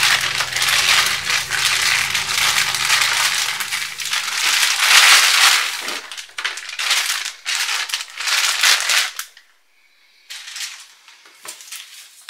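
Clear plastic bag crinkling loudly as a laptop power brick and its cord are pulled out of it, for about nine seconds. After a short pause, a few quieter rustles follow near the end.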